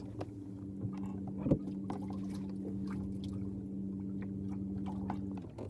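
A small motor hums steadily at one pitch, then cuts off shortly before the end, with a single sharp knock about a second and a half in.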